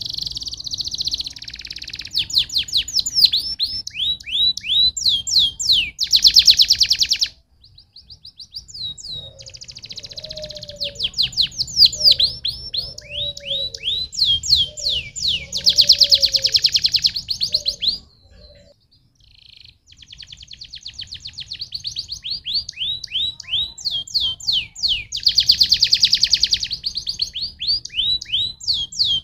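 Domestic canary singing long, fast phrases of repeated downward-sweeping notes and rapid buzzy trills. It breaks off briefly about seven seconds in and again around eighteen seconds.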